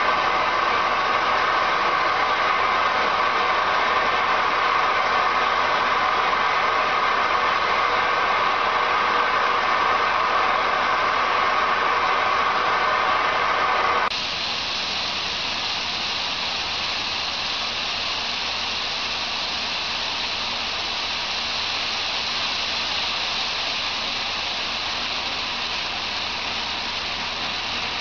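Industrial vacuum conveyor moving gravel: a steady rush of air and stones through the hose over a constant machine hum. About halfway through the sound drops a little and changes to gravel shooting out of the end of the discharge pipe onto a pile.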